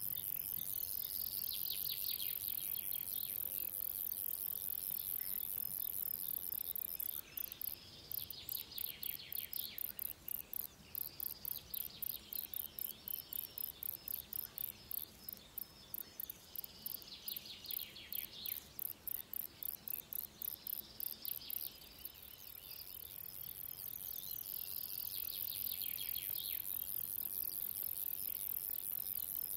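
Grasshoppers stridulating: rasping song phrases about two seconds long, repeated every four to five seconds. Behind them runs a high-pitched continuous insect buzz that breaks into rapid pulses for about fifteen seconds in the middle, then turns steady again.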